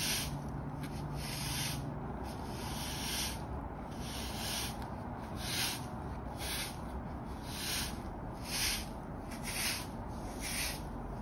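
Hard-bristle broom sweeping dirt across brick pavers in repeated swishing strokes: a few longer strokes first, then shorter ones about one a second.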